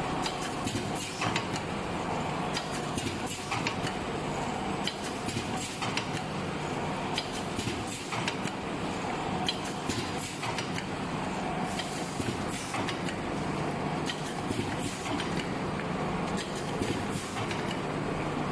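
Paper-plastic blister packaging machine running: a steady hum with frequent clicks and knocks from its sealing press and card-feeding mechanism.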